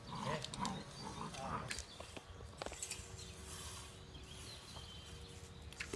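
A young dog growling and whining in short, wavering bursts during the first two seconds while tugging at a rake, followed by a few light clicks and scrapes on the gravel.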